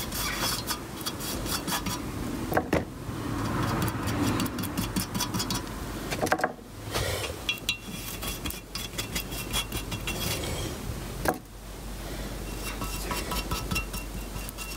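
Hand work on engine parts: metal pieces and tools clinking, scraping and knocking irregularly over a low hum.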